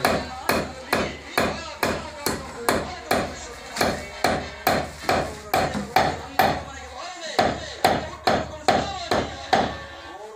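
A hand hammer beating leather for handmade footwear, in a steady run of sharp strikes about two a second, each with a brief ring.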